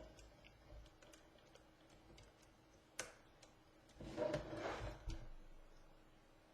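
Faint clicks and handling noise from a small laptop DC power socket and nearby parts being handled. A single sharp click comes about three seconds in, and a short patch of rubbing and knocking follows about a second later.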